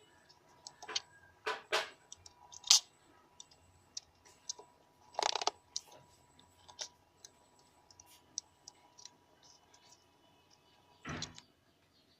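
Irregular sharp clicks and short scrapes of small parts and wires being handled on a workbench, the strongest a few seconds in and one near the end, over a faint steady hum.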